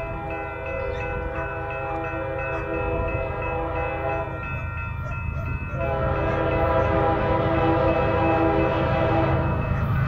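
Union Pacific diesel locomotive's multi-chime air horn sounding two long blasts for a grade crossing, with a short break about four and a half seconds in. A low rumble runs underneath and the sound grows louder as the freight train approaches.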